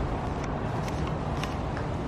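Steady outdoor background hiss and low rumble, with a few faint ticks.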